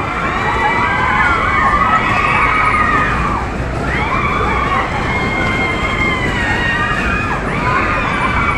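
Riders screaming and whooping on a running Rev Booster ride, many overlapping rising and falling cries over the low rumble of the ride cars going round the track.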